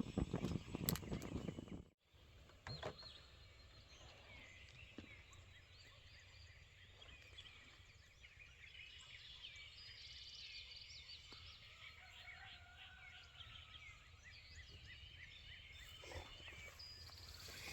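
Faint outdoor ambience with wild birds chirping and calling, one drawn-out sliding call in the middle. Before that, a louder noisy stretch with a few sharp clicks cuts off suddenly about two seconds in.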